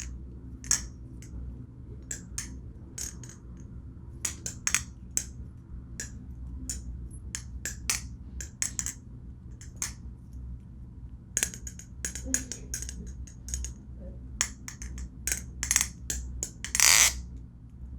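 Irregular light clicks and clinks of a balisong butterfly knife being handled while rubbery, tungsten-weighted handle caps are fitted onto its handles, with a longer clatter near the end over a low steady hum.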